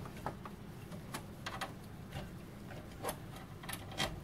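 Faint, irregular small clicks and taps of a long screw and fingers against a PC case's metal mesh rear panel and a plastic fan frame, as the screw is lined up to thread into the fan.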